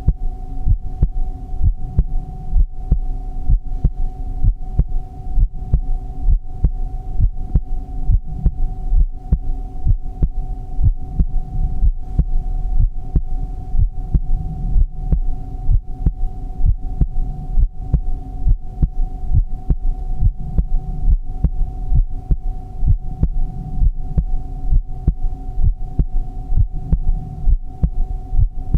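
A heartbeat beating in a steady, even rhythm of low thumps, with a constant hum underneath.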